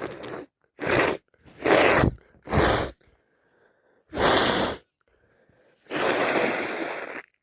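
A woman with a cold sneezing in a quick run, about six sneezes and sharp breaths in seven seconds, the last one longer and trailing off.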